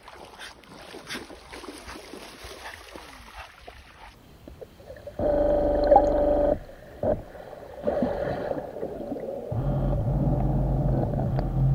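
Small electric thruster motors of a homemade ROV running underwater, a steady hum of stacked tones. The hum switches on abruptly about five seconds in after faint water hiss, stops and starts, and returns at a lower pitch near the end.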